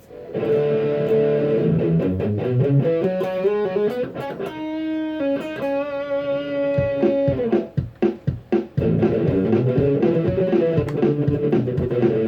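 Electric guitar played through a Zoom G1X multi-effects pedal: a run of picked notes, then a chord held for about two seconds, then short choppy stabs with gaps between them, then busy playing again.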